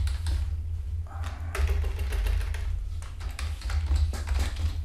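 Computer keyboard typing: a quick, irregular run of key clicks as a word is deleted and typed, over a steady low hum.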